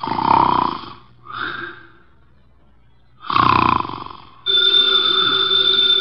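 A man snoring: two long snores with a softer breath between them. About four and a half seconds in, an old telephone bell starts ringing and keeps on.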